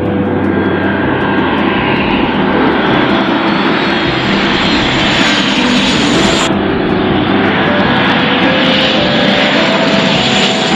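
Jet noise from Blue Angels F/A-18 Hornets passing low, growing louder and brighter. It breaks off abruptly about six and a half seconds in, and a second pass builds up again toward the end.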